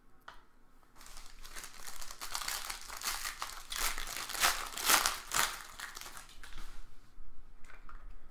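Plastic wrapping on a pack of sports trading cards being torn open and crinkled. It is a dense run of crackling that starts about a second in, peaks midway and eases off near the end.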